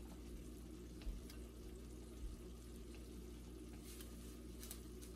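Faint kitchen handling sounds over a steady low hum: a few soft clicks of chopsticks against a ceramic bowl and the rustle of a plastic seasoning packet being squeezed over instant noodles.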